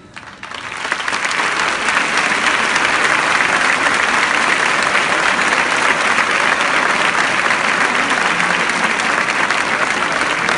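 Large bullring crowd applauding, a dense clapping that swells up within the first second and then holds steady.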